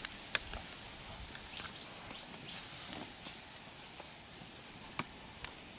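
Faint outdoor ambience: a steady hiss with a few sharp clicks, and a cluster of short high chirps about two seconds in.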